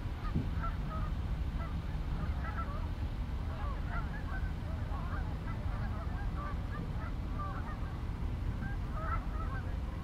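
A flock of geese honking: many short calls overlapping throughout, over a steady low rumble.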